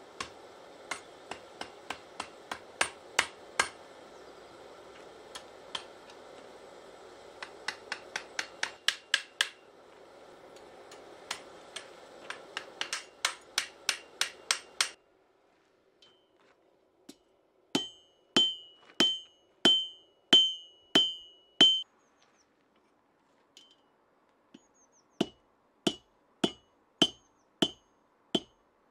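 Hand hammer striking on a steel anvil: quick, irregular blows setting the rivets that fix the chain mounting strap to a wooden handle. About halfway in, the blows change to spaced hammer strikes on hot steel on the anvil horn, each followed by a brief high anvil ring.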